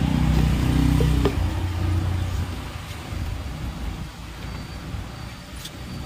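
A motor vehicle's engine running and fading away over the first two seconds, then a low background with a couple of sharp clicks as the red plastic casing of an instant water heater is pried open by hand.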